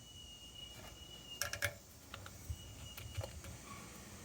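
Light clicks and taps of small metal hydrant linkage parts being handled and fitted together, with a quick cluster about a second and a half in and a few single clicks after. A faint high steady tone comes and goes behind them.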